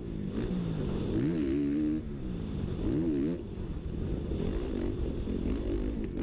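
Kawasaki KX450F motocross bike's four-stroke single-cylinder engine running under riding load, its pitch rising and falling as the throttle is worked, with wind rushing over the microphone.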